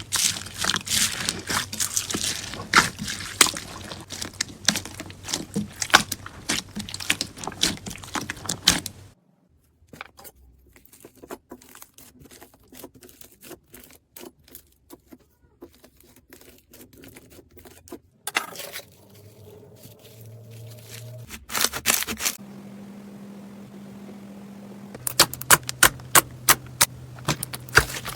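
Slime being worked by hand: dense, rapid crackling and clicking, which turns faint for a stretch in the middle and comes back loud near the end.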